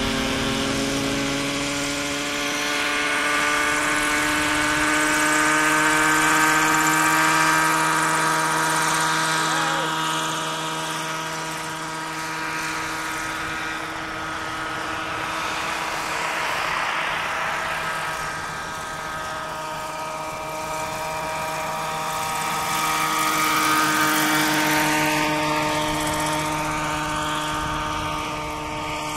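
Radio-controlled scale model helicopter's engine and rotor running, the pitch rising a little at first as it lifts off. It then flies past with a steady engine note and rotor whirr that swells louder twice as it comes close.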